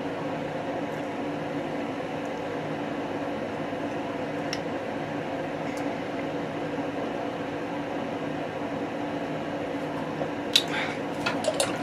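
Steady hum of a running household appliance, with several low droning tones, and a few short sharp clicks near the end.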